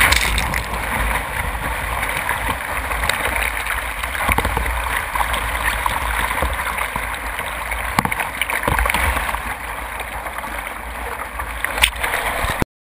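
Breaking surf and whitewater rushing and splashing around a kayak, heard close up from the bow, with a deep rumble underneath and a few sharp knocks.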